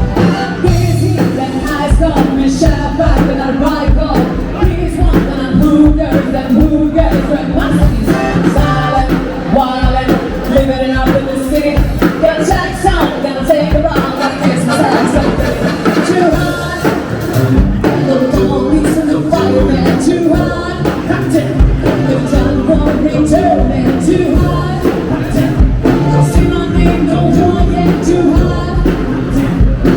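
Background music with singing and a steady beat.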